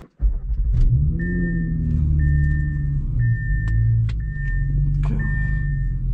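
Audi A6's engine starting, its pitch flaring and then settling into a steady idle, just after a new engine and transmission tune has been flashed to it. Over it a dashboard warning chime beeps five times, about once a second.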